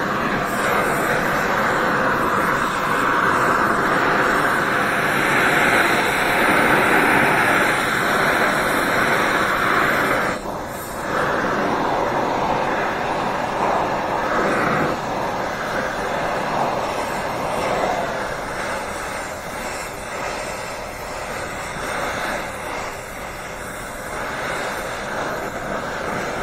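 Gas torch with a cutting-torch tip, its flame hissing steadily as it heats a cast iron exhaust manifold for brazing. The sound dips briefly about ten seconds in.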